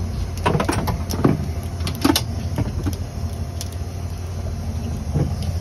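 Boat engine running steadily at low revs, a continuous low drone, with a few short knocks and brief sounds on top.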